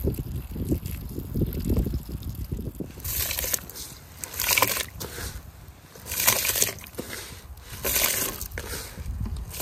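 Water sloshing and trickling, then from about three seconds in a run of short splashes roughly every second and a half.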